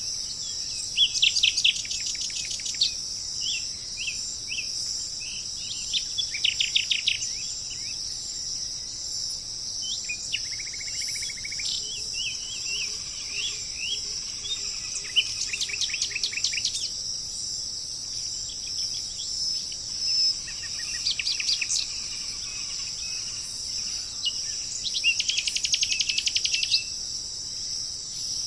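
Tropical forest ambience: a steady high-pitched insect drone, with birds singing short phrases of rapid repeated notes every few seconds, the loudest about a second in, around six seconds in, near sixteen seconds and near the end.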